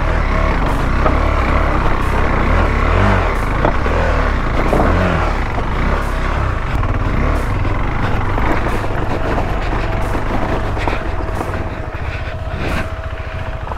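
KTM 390 Adventure's single-cylinder engine running and revving up and down as the motorcycle works over a rocky dirt trail, under a heavy low rumble with scattered sharp knocks from the rough ground.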